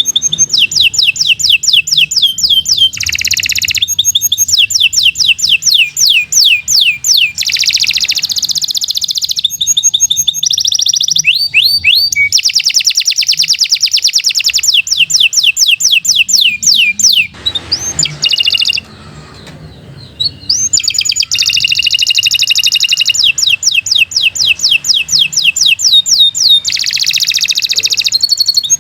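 Domestic canary singing loud, fast trills: long rolls of rapidly repeated, down-slurred whistled notes, changing from one roll to the next. There is a short pause about two-thirds of the way through.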